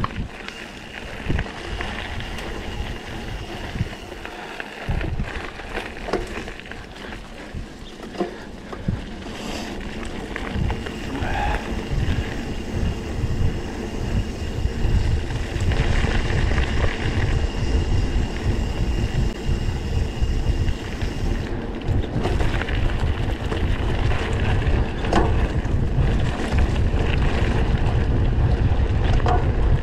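Wind buffeting the microphone, a rumbling rush that grows louder over the second half, with scattered knocks and rattles.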